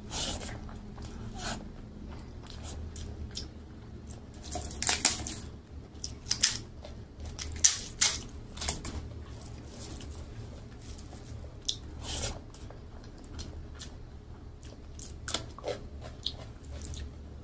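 Close-miked eating: chewing mouthfuls of rice and mashed vegetables, broken by sharp crunching bites of crisp papad that come in irregular clusters.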